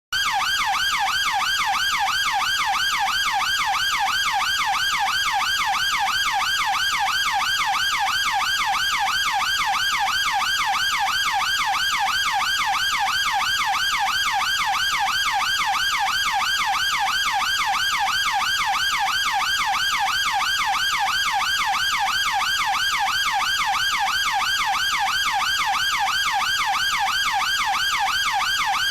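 UK police car siren on its fast yelp setting: a rapid, steady rising-and-falling wail that starts abruptly and holds an even level.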